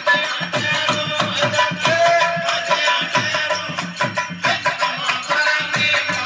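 Rajasthani folk bhajan music played on desi veena with a hand drum keeping a quick, steady beat and a rattling jingle of small hand percussion.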